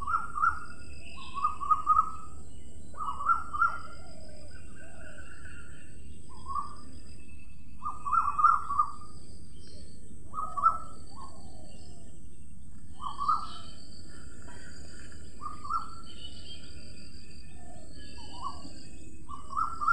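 Short bird calls repeated about every second, with a few fainter, higher chirps between them.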